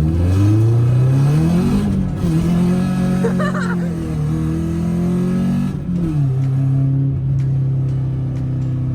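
1996 Acura Integra's four-cylinder engine through a straight-pipe exhaust, accelerating hard. The engine note climbs, drops at a gear change about two seconds in, drops again at another shift near six seconds, then holds steady.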